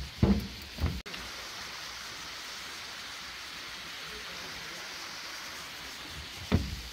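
Low thumps of walking footsteps, about two a second, for the first second. Then, after an abrupt cut, a steady even hiss like rain. The thumps return near the end.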